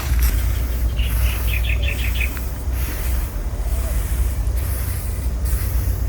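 Rice grains being shifted across a drying ground, a patchy rustling hiss over a steady low rumble. A quick run of about eight bird chirps comes about a second in.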